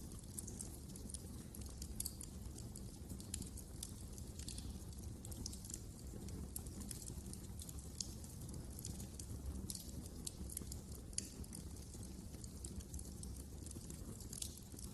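Wood fire crackling in a fireplace: frequent, irregular sharp pops and snaps over a steady low rumble of the flames.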